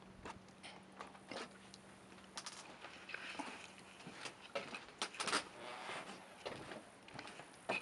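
Irregular footsteps and knocks on a boat dock's walkway, faint, with a low steady hum under them that fades out about four seconds in.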